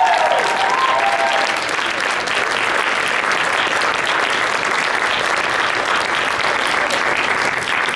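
Audience applauding steadily, with a few cheers in the first second or so.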